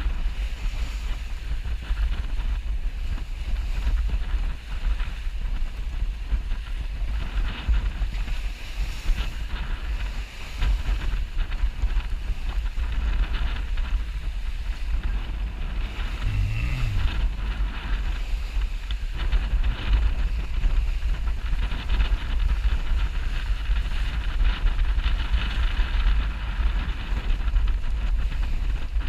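Wind buffeting the microphone of a camera aboard a sailboat under way, a heavy uneven low rumble, with a steady hiss of water rushing past the hull. A brief low hum sounds about two-thirds of the way through.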